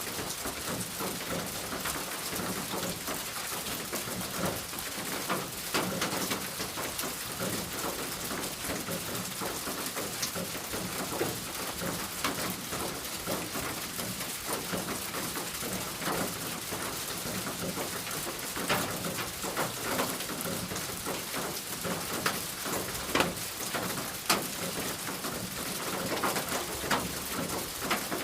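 Rain falling on a roof: a steady hiss of rainfall dotted with many sharp drop taps, with a few louder taps in the second half.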